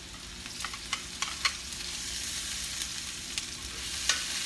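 Garlic sizzling in oil in a stainless steel skillet, with a few sharp clicks of metal tongs as ginger is added to the pan. The sizzle grows louder about two seconds in and stays up.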